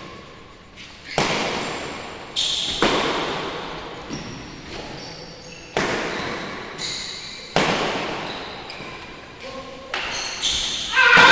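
Badminton rally: a string of sharp racket strikes on a shuttlecock, several a few seconds apart, each ringing out in the echo of a large sports hall, with short high squeaks of court shoes between them.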